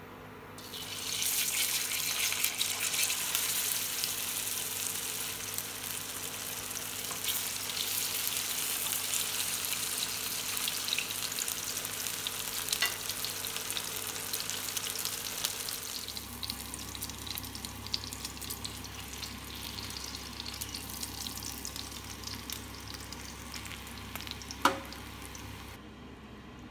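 Flour-coated fish steaks sizzling and crackling in hot oil in a non-stick frying pan, starting about a second in as the fish goes into the pan. The sizzle grows somewhat quieter past the middle, and a single sharp click comes near the end.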